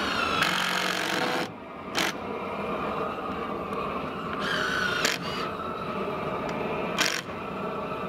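Cordless drill/driver driving screws into wooden window trim in several short bursts, the motor spinning up for about a second near the start and again midway, with brief sharp clicks between, over a steady hum.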